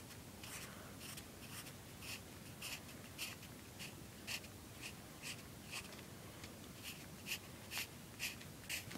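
Faint scratching of a graphite pencil on lined notebook paper, in short quick strokes about two a second, as fur is sketched in.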